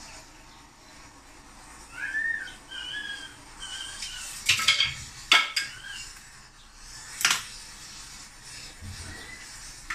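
Sharp clinks and knocks of kitchen utensils and dishes on a counter, about four of them around the middle, the loudest about halfway through. Before them come a few short high chirps.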